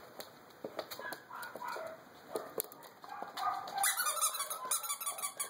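A rubber squeaky dog toy squeaking in short, repeated squeaks as a dachshund puppy carries and mouths it. The squeaks come sparsely at first and grow thicker and brighter in the last second and a half.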